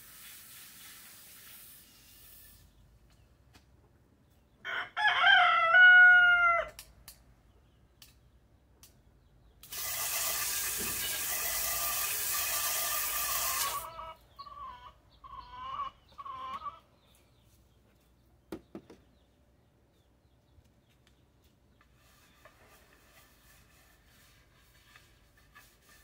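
A rooster crows once, loudly, about five seconds in. A garden hose then sprays water for about four seconds, followed by three short chicken calls.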